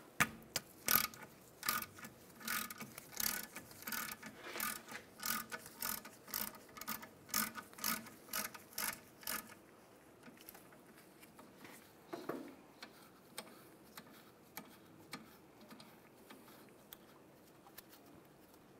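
Hand ratchet clicking at about two clicks a second as a 7 mm hex bit loosens a brake caliper bolt. The clicking turns faint and sparse after about nine seconds.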